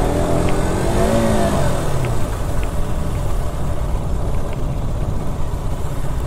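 KTM RC single-cylinder motorcycle engine revving up and then easing off about a second in as the bike pulls away. It then settles into steady running while riding, under heavy wind noise on the microphone.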